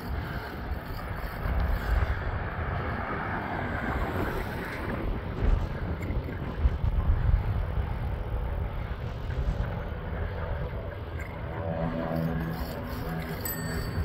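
Wind noise on the microphone of a moving camera, a steady low rush with a few gusts. Over the last couple of seconds a steady motor-like hum from a vehicle joins it.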